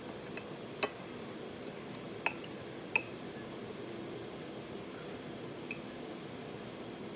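Cutlery clinking against a dish during a meal: three sharp clinks in the first three seconds and a fainter one later, over a steady low room hum.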